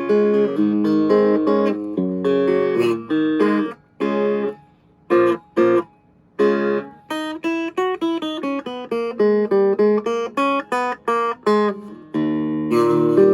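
Vintage Silvertone hollowbody electric guitar played clean with no effects. It starts with strummed chords, then a few short chord stabs with pauses around the middle, then a quick run of picked single notes, and ends on a chord left ringing.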